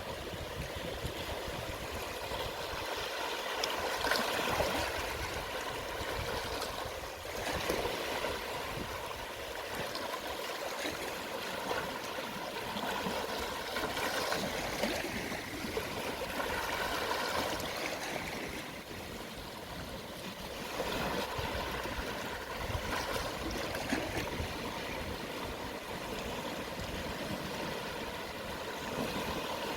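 Gentle small sea waves at low tide washing up the shore and draining back. The sound swells and eases every few seconds.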